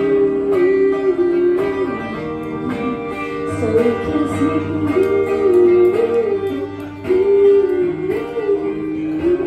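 Acoustic guitar played live, strummed chords under a woman singing the melody into a microphone.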